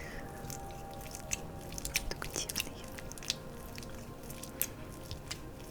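Oil-slick hands and fingers working on skin, making many quick, irregular wet clicks and sticky crackles.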